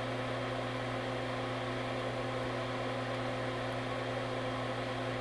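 Steady electrical hum with an even fan-like hiss from mains-powered equipment running, unchanging throughout.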